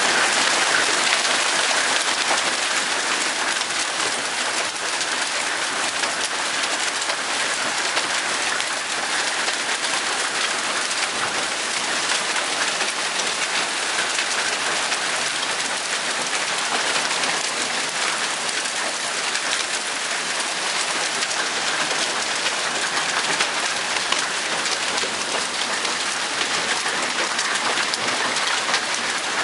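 Hail mixed with heavy rain pelting down on the porch, lawn and street: a dense, steady hiss with fine sharp ticks all through it.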